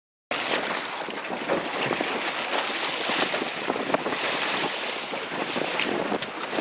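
Wind buffeting the microphone over water splashing around a small boat at sea, starting abruptly a moment in as a steady, rough rush of noise.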